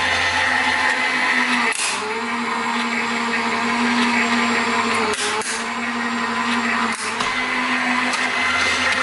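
Gemini Junior electronic die-cutting and embossing machine running, its motor-driven rollers pulling a plate sandwich with a cutting die and paper through. A steady motor hum and whine, with brief dips and clicks about two, five and seven seconds in.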